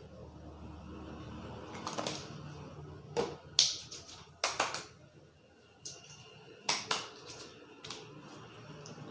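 Sharp hand slaps and claps of a barber's percussive head massage, coming singly and in quick pairs at an uneven pace, over a low steady room hum.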